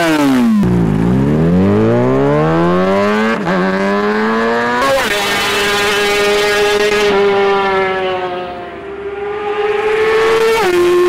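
Kawasaki ZX-6R inline-four through a Scorpion RP1 slip-on exhaust, revved hard: the revs fall, climb in two quick sweeps, then hold at a high, steady pitch for several seconds before dropping suddenly near the end.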